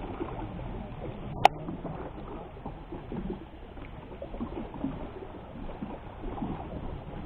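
Small irregular water sounds, lapping and gurgling, with a single sharp click about a second and a half in.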